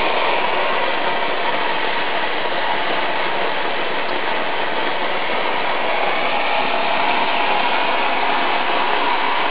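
Oxy-acetylene cutting torch giving a steady hiss as its oxygen jet cuts through metal.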